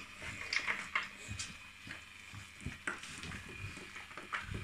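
Dog eating dry food from a plastic slow-feeder bowl: irregular crunching, kibble clicking and the bowl knocking and scraping on the mat.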